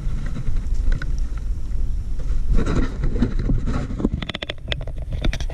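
Wind rumbling on the microphone, with a quick run of small clicks and taps near the end.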